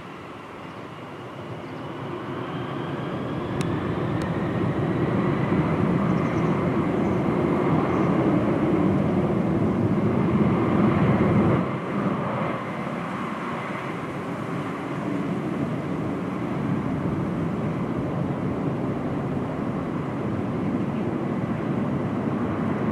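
Boeing 747-400's four Pratt & Whitney PW4056 turbofans at takeoff thrust during the takeoff roll: a loud jet roar that builds over the first few seconds, with a fan whine rising in pitch, then holds steady.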